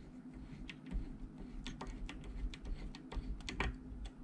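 Irregular light clicks and scrapes of a screwdriver turning a screw down into a radio's steel chassis, over a faint steady hum.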